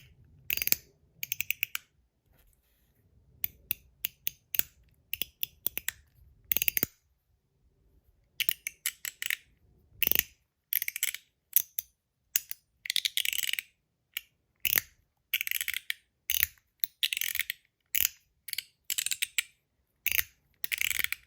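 Stainless steel MOT Groove mechanical slider fidget being slid back and forth, clicking with sharp metallic snaps in quick runs, with a short pause about seven seconds in.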